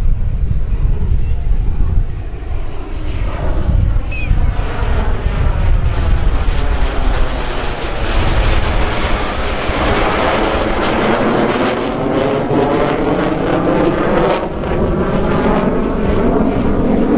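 Formation flyby of an F/A-18F Super Hornet, with its twin turbofan jets, and two F4U Corsairs, with their radial piston engines and propellers. The noise builds from about three seconds in and is loudest through the latter half, with a slow swirling, phasing sweep as the formation passes overhead. Wind buffets the microphone at the start.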